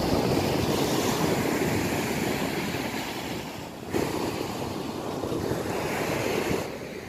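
Sea surf washing onto a sandy beach, a steady rushing noise with wind buffeting the microphone, briefly broken about four seconds in.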